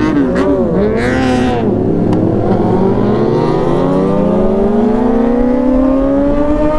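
Sport motorcycle engine, loud, its pitch swinging up and down with the throttle for about two seconds, then rising slowly and steadily as it pulls under acceleration.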